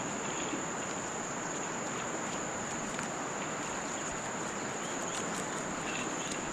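Insects calling in one steady high-pitched drone over a low, even background hiss.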